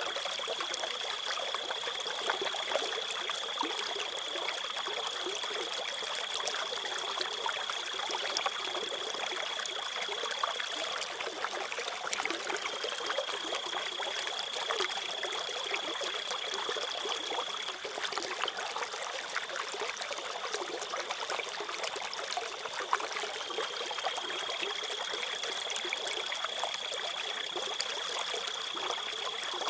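Water trickling in a stream, steady throughout, with a cricket's continuous high-pitched trill over it that breaks off briefly three times.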